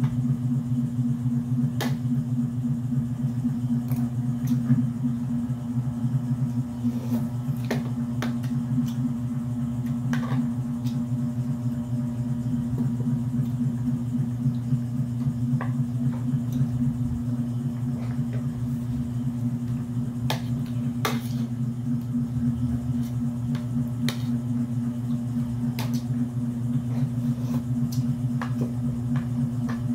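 A steady low hum, with scattered sharp clicks and cracks of cooked mud crab shell being picked apart by hand during eating.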